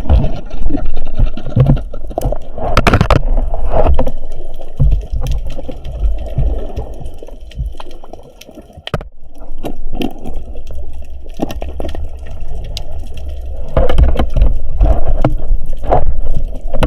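Sea water sloshing and gurgling close to the microphone, with a low rumble and many scattered knocks and clicks; it drops away briefly about halfway through.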